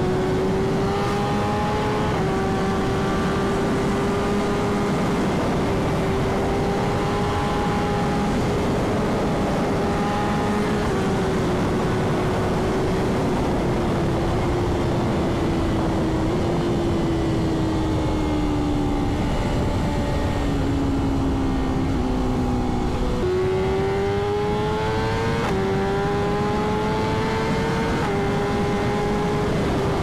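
Straight-piped BMW S1000RR inline-four engine running hard at highway speed, under a heavy rush of wind noise. Its pitch holds steady, then sags slowly in the middle as the throttle eases. About three-quarters through it climbs hard again, and the pitch drops sharply twice as it shifts up.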